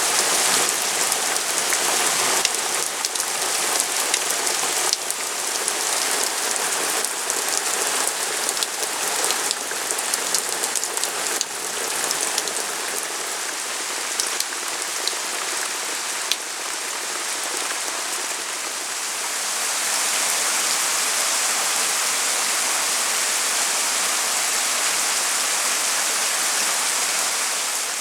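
Steady rain, a dense hiss of falling drops with fine pattering clicks. About twenty seconds in it turns smoother and a little louder.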